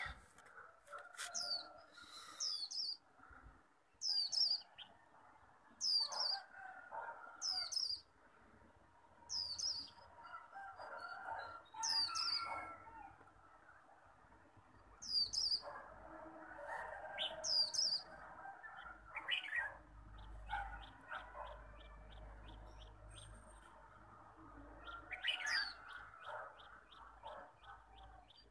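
White-eyes (chim khuyên) singing from their cages. Sharp, high notes that fall in pitch come about once a second, stop for a while, then return, and near the end a fast run of short high notes follows, over softer, busier bird chatter.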